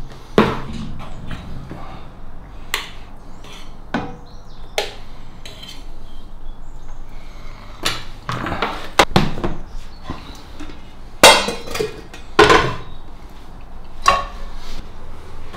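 Kitchen clatter: a metal fork knocking and scraping food out of a plastic tub into a frying pan, among scattered knocks of utensils and dishes being handled. The two loudest knocks come about three-quarters of the way through.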